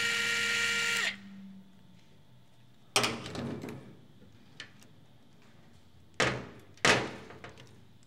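A small electric motor whirs, rising in pitch to a steady whine, then stops about a second in. After that come sharp metal clacks from the IBM Selectric's mechanism being worked by hand: one about three seconds in and two more close together near the end.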